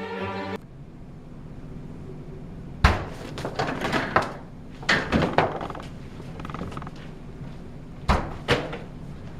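Orchestral string music cuts off about half a second in. A low steady hum follows, with scattered knocks and thuds: a sharp one about three seconds in, a cluster over the next couple of seconds, and two more near the end.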